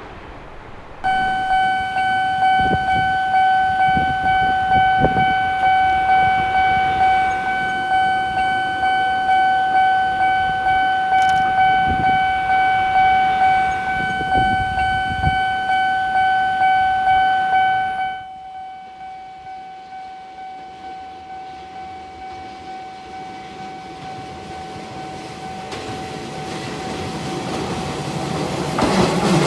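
Japanese level-crossing alarm ringing, an electronic bell repeating in a quick, even ding rhythm. It starts suddenly, drops to a quieter level about two-thirds of the way through, and keeps ringing. Near the end the rumble of an approaching train rises under it.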